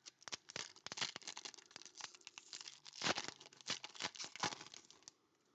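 Foil trading-card pack wrapper being torn open and crinkled by hand: a dense, irregular crackle that stops near the end.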